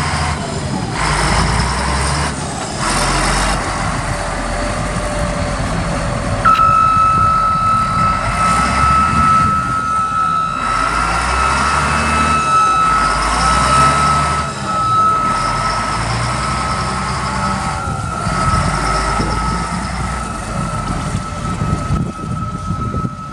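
Caterpillar 140G motor grader's six-cylinder diesel engine running, its sound shifting up and down as the machine works. About six seconds in, a high backup alarm starts and keeps sounding.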